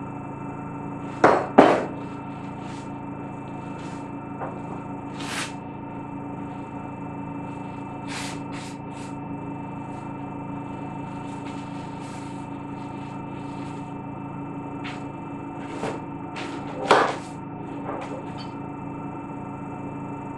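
Steady hum of laboratory equipment running during an infrared spectrophotometer scan, made of several fixed tones. Scattered clicks and knocks sound over it: two loud ones close together about a second and a half in, a few faint ones, and another loud one near the end.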